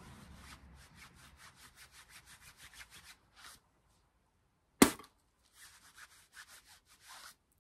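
A cloth rag rubbed briskly up and down a steel Arctic Cat 400 ATV CV axle shaft, wiping it clean before a new boot goes on. It makes quick, even strokes, about five a second, with a pause and one sharp knock near the middle.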